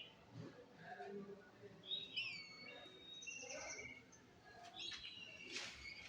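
Birds chirping: many short whistled calls that rise and fall, overlapping.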